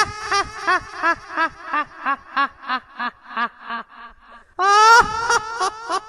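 Evil laugh: a long cackle broken into short "ha" syllables, about three a second, falling in pitch and trailing off, then a fresh loud burst of laughter starts near the end.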